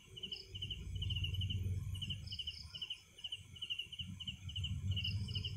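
Field crickets chirping steadily, each chirp a quick group of a few pulses, about two chirps a second. A higher-pitched insect joins in now and then, over a low rumble that swells and fades.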